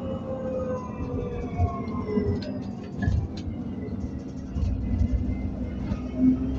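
Inside the upper deck of an ADL Enviro400 Trident 2 double-decker bus on the move. A high whine slides down in pitch over the first few seconds among body and window rattles, then the deep engine rumble swells up about four and a half seconds in.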